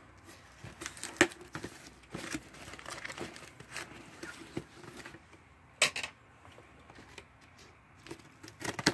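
Cardboard shipping box being handled and its packing tape picked at and torn, with scattered scrapes, crinkles and sharp taps, the loudest about a second in and just before six seconds. Near the end, scissors cut along the taped seam.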